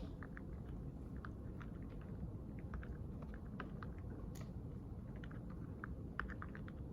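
Quiet study-library room tone: a steady low background rumble with scattered light, irregular clicks and taps, some like laptop keys being pressed.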